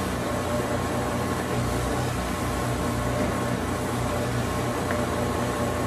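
Steady whir of a workshop machine's electric motor running, with a low mains hum.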